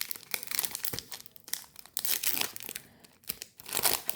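Baseball trading card pack wrapper crinkling and tearing as it is opened by hand, in irregular rustling crackles.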